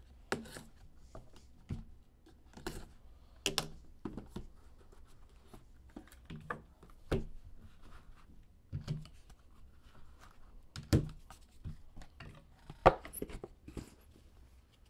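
A small box being slit open with a utility knife and its lid and cards handled: scattered light clicks, scrapes and taps, with one sharper tap near the end.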